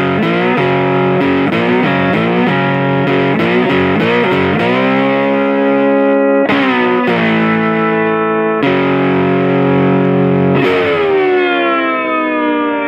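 Distorted electric guitar intro music. Short choppy chords give way to held chords, and a last chord rings out, sagging in pitch as it slowly fades.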